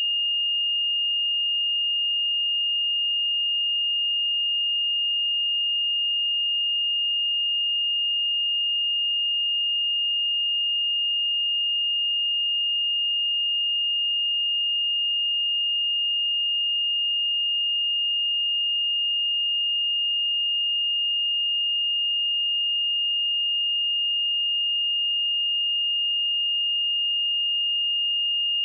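A pure 2833 Hz sine-wave test tone, one steady high-pitched pitch held at a constant level without change.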